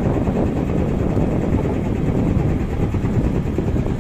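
Fishing boat's engine running, a steady low rumble.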